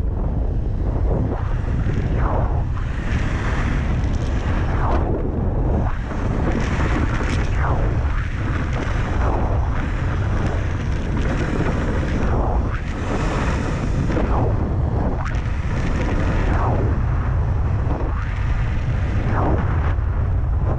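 Wind buffeting a GoPro action camera's microphone, a loud steady rumble, while the snowkiter glides over snow-covered ice; a swish rises and falls every second or two.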